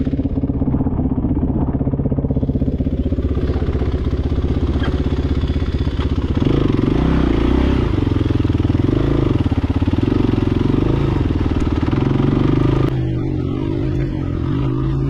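Dirt motorcycle engine running as the bike is ridden along a muddy dirt road. It picks up revs about six and a half seconds in and rises and falls with the throttle, then turns duller and slightly quieter near the end.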